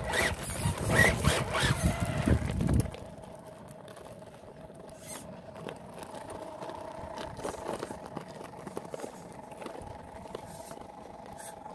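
Redcat Gen8 RC rock crawler's electric motor and gear drivetrain whining steadily as it crawls up a rock face, with scattered clicks of tyres and stones. The first three seconds are louder, with low rumbling and knocks.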